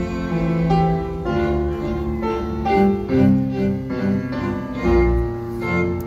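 Live classical music from a string orchestra with piano: the piano plays a series of notes and chords over sustained bowed strings (violins, cellos, double basses).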